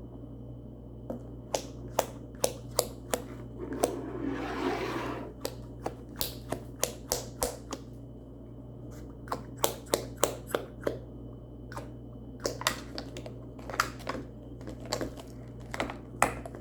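Irregular sharp clicks and taps from small toys and their packaging being handled, with a short rustle about four seconds in.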